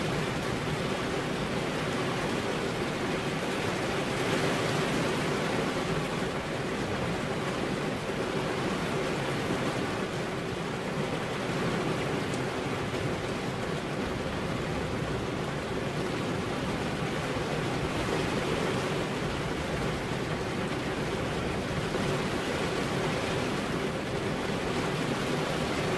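Steady rain falling, an even hiss with no distinct drops or rumbles standing out.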